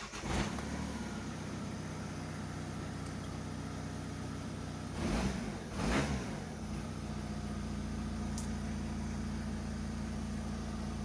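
Opel Combo 1.7 diesel engine idling steadily, blipped twice in quick succession about five and six seconds in. The engine now starts and runs after a no-start fault was repaired.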